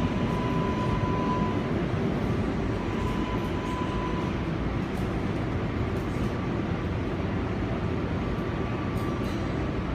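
Inside an R188 subway car on the 7 line, moving along a station platform: a steady rumble of the car running on the rails, with a faint steady whine on top.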